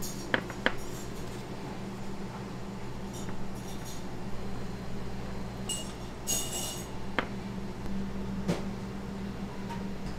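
Steady low hum of kitchen equipment with a few sharp clinks of kitchenware: two close together just after the start, one about seven seconds in and one near the end. There is soft rustling in between.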